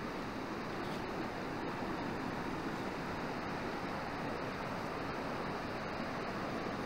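Steady rush of fast-flowing water from the Cline River running high and silty in flood.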